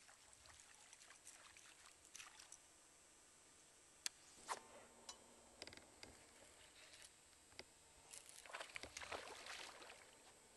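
Faint lapping and small splashes on calm lake water, with scattered sharp clicks. About eight seconds in, a longer spell of splashing as something breaks the water's surface.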